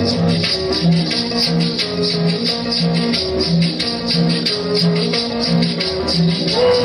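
Latin dance music with a steady beat: shakers rattling over a repeating bass line.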